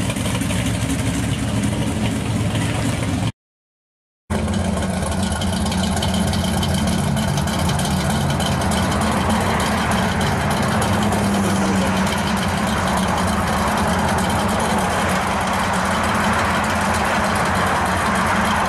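Car engines running at idle as they creep past: one car for the first few seconds, a short break of silence about three seconds in, then a hot-rodded Chevy II Nova's engine idling steadily as it pulls slowly away, getting a little louder toward the end.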